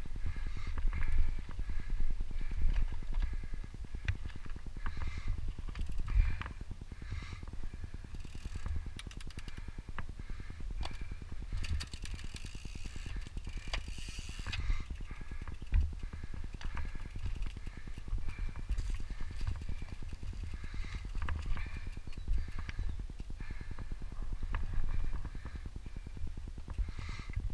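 Mountain bike riding over a dry dirt singletrack: wind rumbling on the on-board camera microphone, with frequent sharp clicks and knocks as the tyres and bike rattle over bumps and stones. About halfway there are a few seconds of louder hiss.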